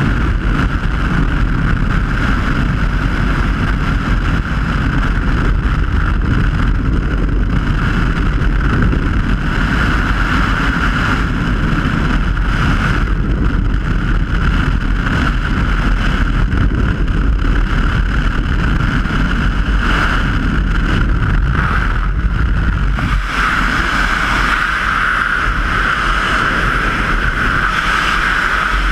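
Freefall wind rushing over a helmet camera's microphone: a loud, steady roar with low buffeting and a whistling note running through it. About 23 seconds in, the low buffeting thins out and the whistle stands out more.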